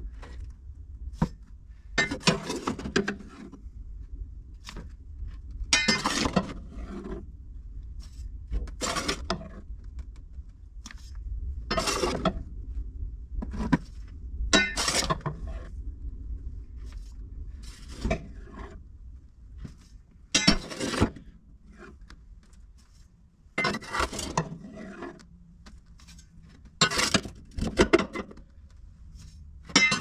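Metal scraping and clanking in about a dozen separate strokes, one every second or few, over a low steady rumble.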